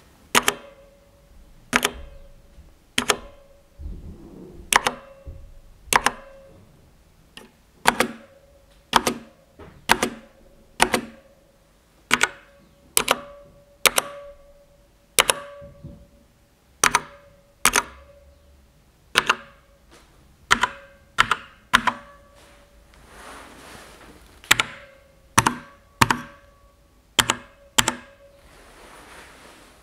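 Keys of a Sharkoon Skiller Mech SGK1 mechanical keyboard with Kailh Brown switches being pressed one at a time, about one keystroke a second. Each stroke is a sharp clack followed by a short hollow ringing from inside the case, the poorly damped mechanical echo heard most in the middle rows.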